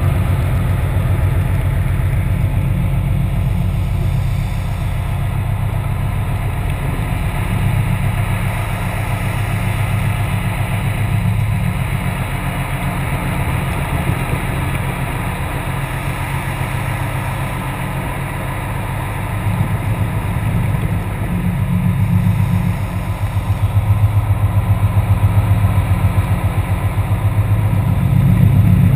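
An engine or machinery running steadily, heard underwater as a low, fast-pulsing rumble that swells near the end.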